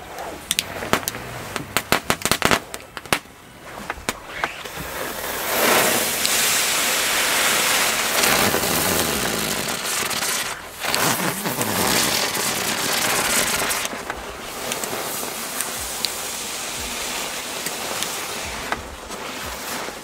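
Small Class 1 (F1) novelty fireworks going off: a quick run of sharp cracks and pops for the first few seconds, then a steady hiss of burning pyrotechnic effects for most of the rest, fading somewhat after about fourteen seconds, with a few cracks near the end.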